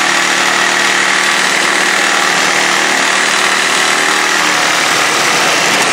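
Cordless reciprocating saw running at a steady speed, its blade sawing through the mower's steel steering bar.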